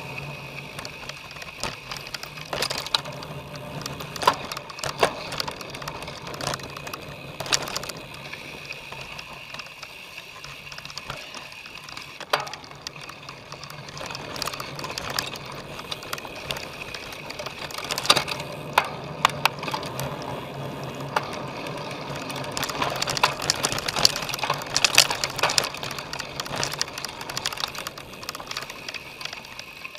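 A cyclocross bike being ridden hard over rough ground, its chain and frame rattling and clicking with sharper knocks over bumps, above a steady low hum. The knocks come thickest about 18 seconds in and again a few seconds after that.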